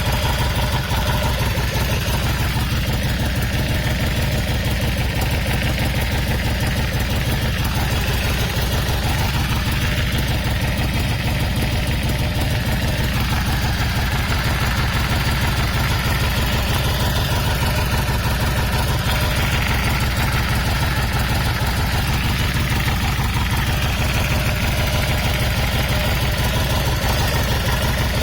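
Yamaha BT 1100 Bulldog's air-cooled V-twin idling steadily. The owner says it has sounded odd since its last start, as if something has play, coming from the middle of the left engine cover.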